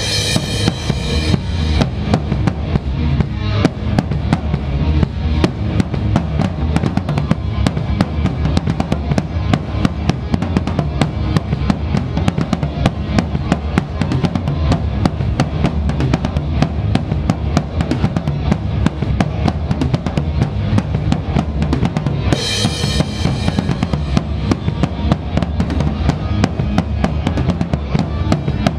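Live rock band playing, with the drum kit loudest: a fast, steady run of kick drum and snare hits, and cymbal crashes near the start and again about three-quarters of the way through.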